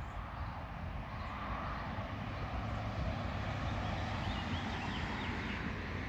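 Road traffic going by: a steady rush of tyre noise over a low rumble, swelling a little after the middle, with a few faint high chirps about four to five seconds in.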